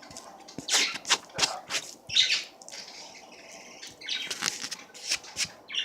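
Someone eating chicken close to the microphone: irregular chewing with sharp mouth clicks and smacking.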